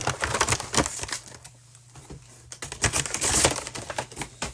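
Foil booster packs and their box packaging crinkling and crackling as they are handled. The sound comes in two spells, the second about three seconds in.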